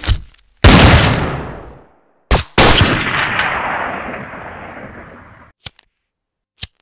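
Gunshot sound effects: two loud shots about two seconds apart, each fading out in a long echo, the second longer than the first, with short sharp clicks before the second shot and near the end.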